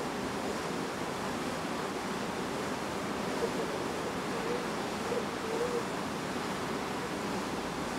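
Steady rush of wind and water past a ship under way. A few faint, short wavering tones come through in the middle.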